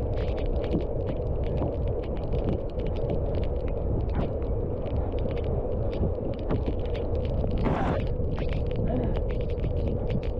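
Wind buffeting the microphone on a moving bicycle, with tyre noise on a wet, slick road and many scattered small clicks; a brief louder hiss comes about three-quarters of the way through.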